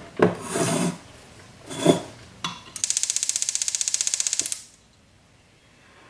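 A jeweller's soldering torch being readied and lit: a few short hisses and knocks, then a rapid, even rasping tick for nearly two seconds that stops abruptly.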